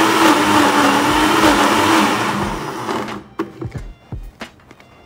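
Electric blender running with a steady motor hum as it grinds a wet chilli-and-spice paste; it cuts off about three seconds in. A few light clicks and knocks follow.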